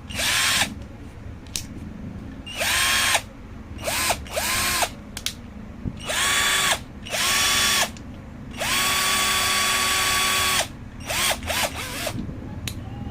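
Ingco 12V cordless drill motor run in a series of short trigger pulls. Each pull spins up quickly to a steady whine and then stops, with one longer run of about two seconds about two-thirds of the way in.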